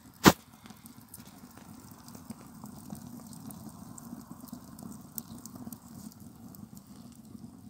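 Wood fire crackling in the open firebox of a kazan stove, with one sharp loud pop about a quarter second in and small crackles over a steady low rush.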